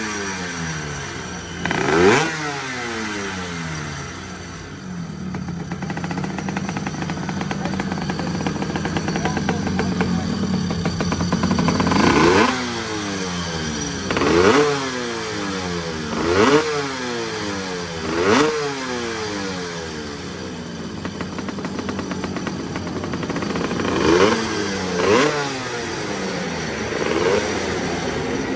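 1972 MZ 250 RE two-stroke racing motorcycle engine being warmed up: it runs steadily while the throttle is blipped about eight times, each rev climbing sharply and dropping back, with a quieter steady stretch in the middle.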